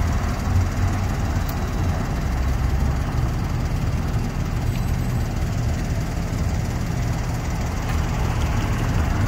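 Steady road traffic and idling vehicle engines: a low, even rumble with no single event standing out.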